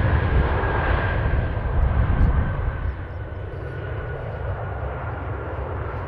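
Jet airliner's turbofan engines, a J-AIR Embraer E-Jet slowing on the runway after landing. A rumbling roar eases about two and a half seconds in, under a high whine that slowly falls in pitch as the engines spool down.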